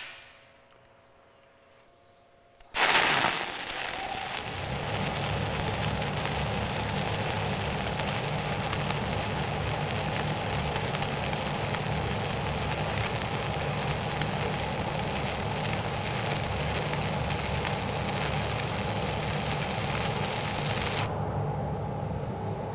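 Stick welding with a 6010 cellulose electrode at 80 amps: the arc strikes about three seconds in and then crackles and sputters steadily as the bead is run, stopping shortly before the end.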